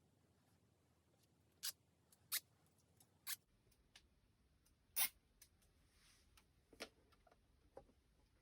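About six sharp clicks and taps, scattered and irregular, the loudest about five seconds in, over a faint quiet background: hand tools and the tire knocking against the rim as a Segway miniPRO tire is worked onto its wheel.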